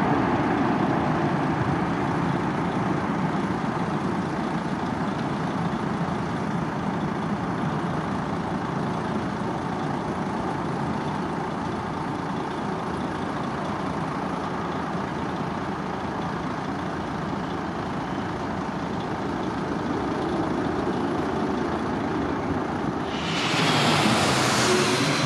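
Jet airliner engines running, a steady rumbling noise heard as aircraft land and take off. Near the end, a louder rush of noise lasts about two seconds.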